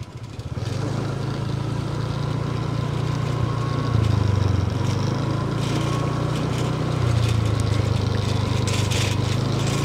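Motorbike engine running steadily at low riding speed, picking up about half a second in, with small changes in pitch as it goes.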